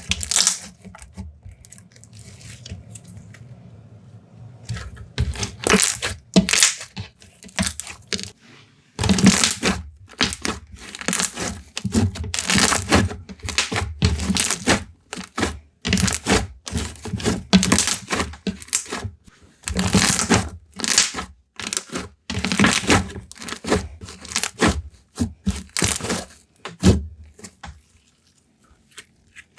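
Slime being squeezed, folded and stretched by hand, giving quick irregular clicks, crackles and small bubble pops. It is quieter for the first few seconds, and the clicking sets in about five seconds in.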